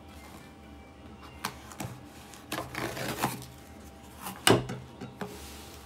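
A large knife slitting the packing tape on a cardboard box and the flaps being pulled open: scraping and rustling of cardboard with a few sharp knocks, the loudest just past halfway.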